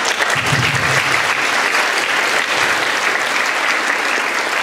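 Audience applauding: steady, dense clapping from many hands.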